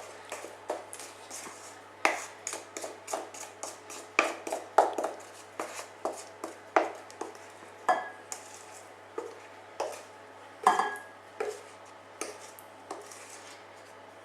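A kitchen utensil scraping and knocking against a mixing bowl as cake batter is transferred into an oven dish, making a string of irregular clinks and taps.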